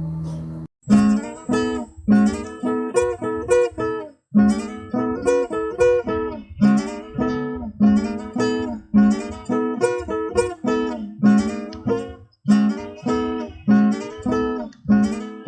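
Acoustic guitar strummed in a steady rhythm of chords, each attack ringing and fading, with two brief breaks. A steady droning tone cuts off under a second in, just before the strumming starts.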